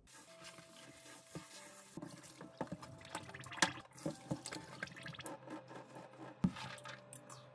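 Cooked noodles being rinsed under a running kitchen tap: water splashing in a sink, with scattered knocks and clatter of a plastic tray and metal strainer against the sink.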